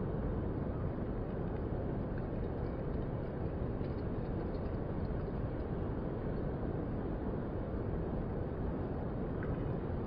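Ocean surf from small waves breaking along a sandy beach, a steady low rush with no single crash standing out.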